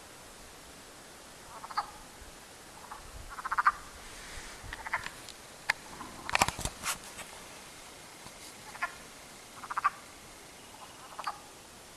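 Short calls from an unidentified wild animal in the woods, each a fraction of a second long, repeated roughly every one to two seconds, about eight in all. A few sharp clicks come about halfway through.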